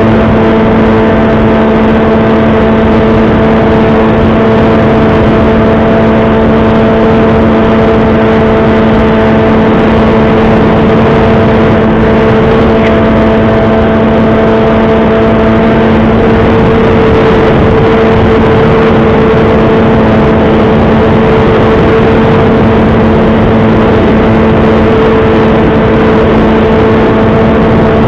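Brushless electric motor and propeller of a Bixler 3 RC plane running at steady throttle in flight: a loud, even hum at one constant pitch, over a hiss of rushing air.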